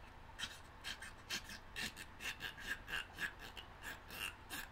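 ARK Therapeutic chewelry pendant being chewed close to the mic, giving an uneven run of short rubbing sounds of teeth on the chew, about three or four a second.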